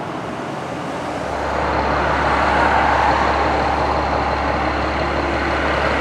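Fire trucks driving by on the road: a heavy diesel engine hum and tyre noise come in and grow louder about a second in as a brush truck approaches.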